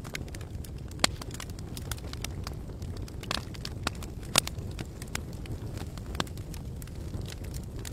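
Wood campfire burning: a steady low rumble with irregular sharp crackles and pops from the burning wood, the loudest about a second in and past the middle.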